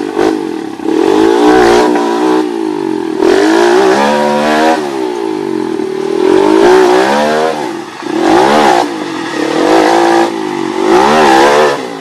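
Dirt bike engine revved hard in repeated bursts, its pitch rising and falling over and over as the bike is forced up a rocky climb under heavy load.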